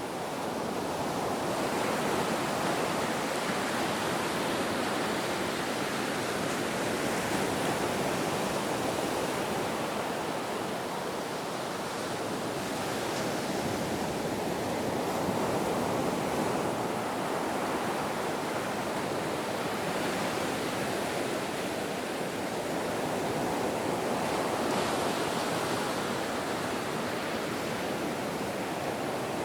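Ocean waves breaking and washing onto the shore in a continuous rushing surf, the wash swelling and easing slowly every few seconds.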